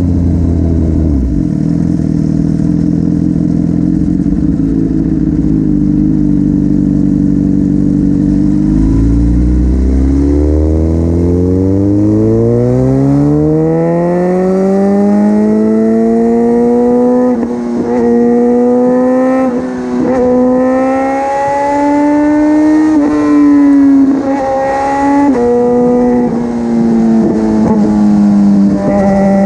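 Suzuki GSX-R1000 K8 inline-four running through an aftermarket Cobra dual exhaust while riding. The note holds steady at first. About nine seconds in, the revs climb over several seconds and hold high, broken by several brief dips in the note.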